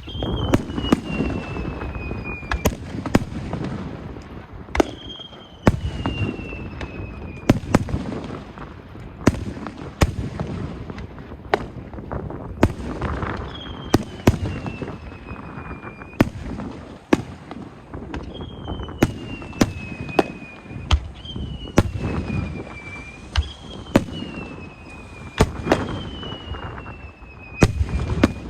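Aerial fireworks going off in a steady barrage of sharp bursts and bangs over a continuous rumble. Shrill whistles that fall in pitch over a couple of seconds recur about eight times.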